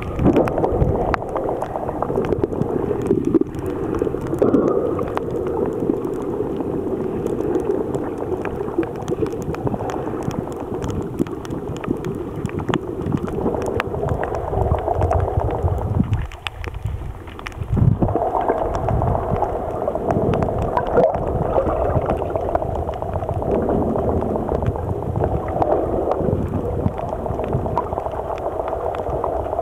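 Muffled underwater sound picked up by a submerged camera: a steady low rush of moving water with scattered faint clicks and crackles throughout, dipping briefly a little past halfway.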